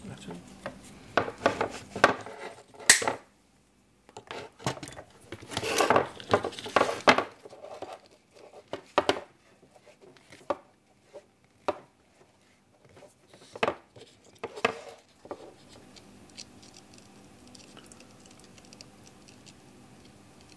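Close handling sounds of wiring work on a small FPV quadcopter frame: a hobby knife scraping and cutting at wires and tape among scattered clicks, scratches and rustles, densest about six seconds in. For the last five seconds or so only a faint steady hum remains.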